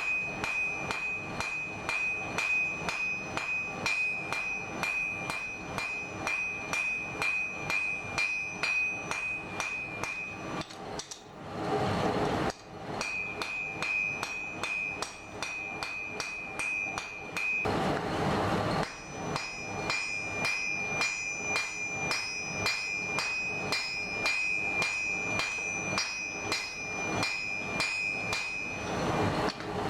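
Hand hammer striking a hot steel axe blank on an anvil in a steady rhythm of about three to four blows a second, drawing out the blade thinner, with the anvil ringing on a high note between blows. The hammering breaks off twice for a couple of seconds of rushing noise.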